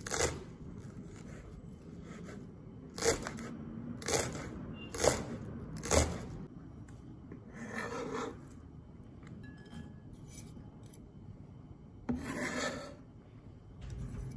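Knife chopping Chinese chives on a plastic cutting board: a few sharp chops about a second apart. Then, twice, the blade scrapes the chopped chives across the board in longer rasping sweeps, about 8 seconds in and again near the end.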